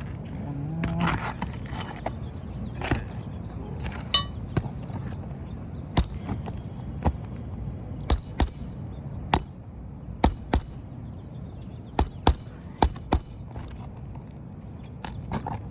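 Sharp knocks of a hammer striking a metal nail-removal tool, singly or in quick pairs about once a second, as stuck roofing nails are worked free from under an asphalt shingle.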